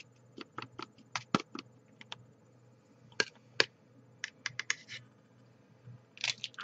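Light, irregular clicks and taps of hard plastic from handling the clear plastic tray of a DIY candy kit. They come in quick runs early and again around the middle, with a couple of sharper clicks a little past three seconds in.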